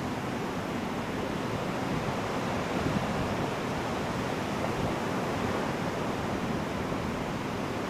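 Ocean surf breaking and washing up onto a beach, a steady rushing wash of waves.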